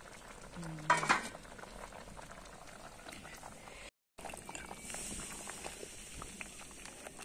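Dried figs and sugar syrup boiling hard in a large metal pot over a wood fire for fig jam, bubbling and popping steadily. A wooden spoon stirs through the thick jam in the later part. A short knock and a brief voice sound come about a second in.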